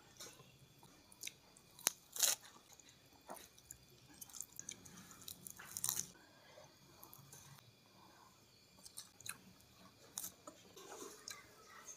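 A person chewing mouthfuls of rice and side dishes, quiet chewing broken by scattered short crunches and mouth clicks, the sharpest about two seconds in and near six seconds.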